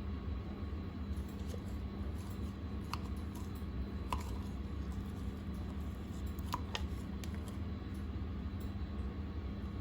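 Slime being handled and squished, giving a few faint sharp clicks and pops over a steady low background hum.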